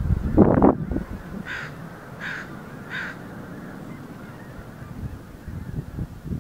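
Geese honking: three short, evenly spaced honks about a second and a half in, over a steady low rumble, with a louder low burst of sound near the start.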